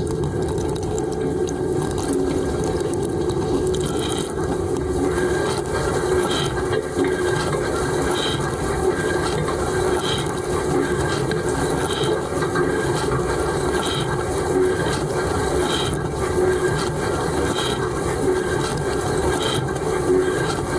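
Dishwasher running its wash cycle, heard from inside the tub: a steady rush of spraying water, with a faint swish that recurs about every two seconds from a few seconds in.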